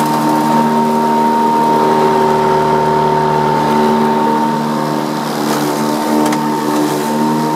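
Toro Flex-Force 60V battery-powered electric lawn mower running steadily under load, its blade cutting through dry oak and sycamore leaves. The sound is a steady hum with a high whine.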